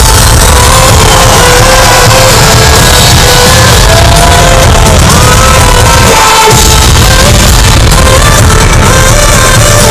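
Electronic dance music from a DJ set, played very loud over the sound system, with the crowd shouting and singing along. The bass cuts out briefly about six and a half seconds in, then comes back.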